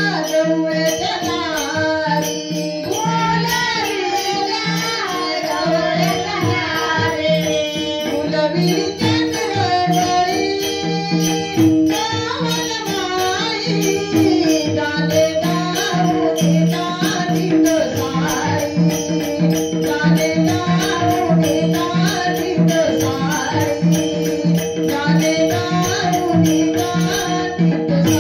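Marathi bhajan music (a gaulan): a singer's wavering melody over a steady drone, with a hand drum and small jingling cymbals keeping a fast, even beat.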